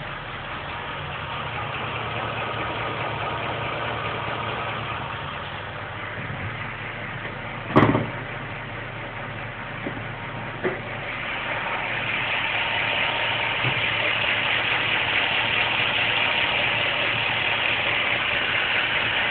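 Ford BA Falcon XR8's Boss 260 5.4-litre DOHC V8 idling warm with a ticking and knocking noise from the cylinder heads, which the owner puts down to worn valve guides, a known defect of these heads. A single sharp knock stands out about eight seconds in, and the engine noise grows louder past the middle.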